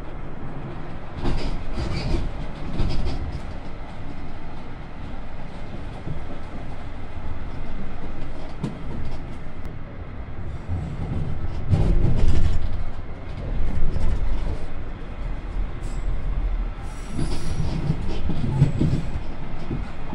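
London Underground Jubilee line train heard from inside the carriage as it runs over the crossover points onto the northbound line. A steady low rumble with clusters of loud wheel knocks over the points, and a brief high wheel squeal near the end.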